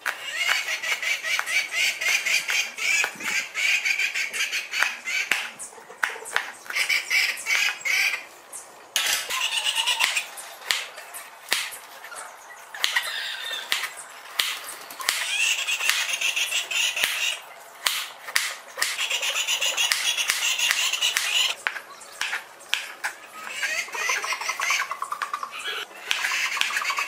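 A kitchen knife chopping and slicing on a plastic cutting board, cutting through chillies, carrot and cucumber in quick, irregular taps. Bird calls come and go in the background.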